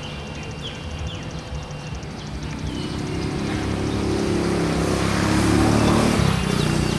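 A motor vehicle passing close by: its engine grows louder over several seconds, peaks near the end, then begins to fade with a drop in pitch.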